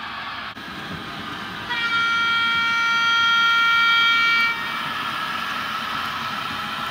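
Märklin H0 model of an NSB El 12 electric ore locomotive sounding its horn through its digital sound decoder. The horn is a steady chord of several tones lasting about three seconds and starts about two seconds in, over the steady running noise of the model train on the track.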